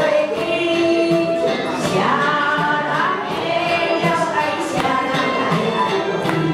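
A woman singing a song into a handheld microphone over a karaoke backing track, holding long notes.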